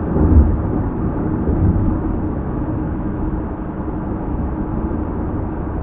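Steady road and engine noise inside a car cruising at freeway speed: a low, even rumble, with a brief louder swell about half a second in.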